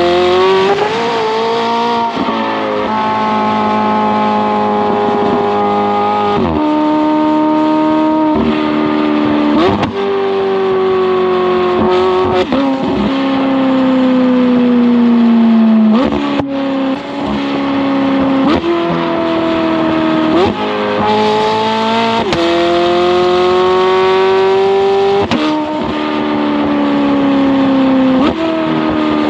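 McLaren 720S twin-turbo V8 through a non-valved titanium double X-pipe exhaust with free-flow downpipes, heard close up from a bumper-mounted camera while driving. The engine note climbs and falls repeatedly, jumping in pitch at each gear change, with one long falling stretch about midway.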